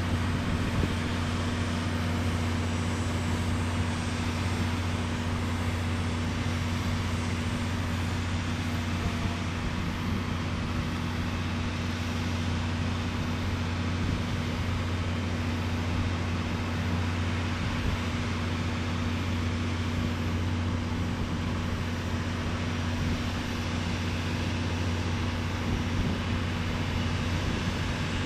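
A motor running with a steady, unchanging low hum.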